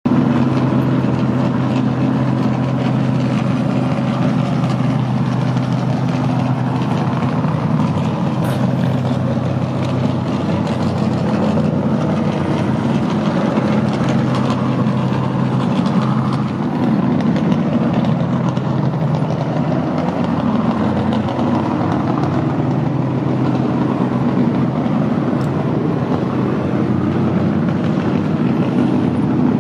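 Motorboat engine running steadily at low speed, a constant low hum with no change in pitch.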